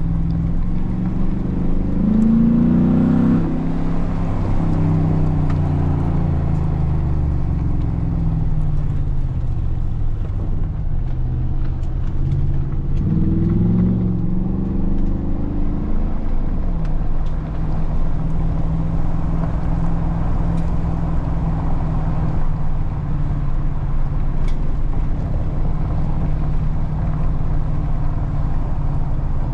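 Ford SVT Raptor's 6.2-litre V8 engine and exhaust under way, pulling up in revs about two seconds in and again around twelve seconds in, falling back after each, then holding a steady cruise.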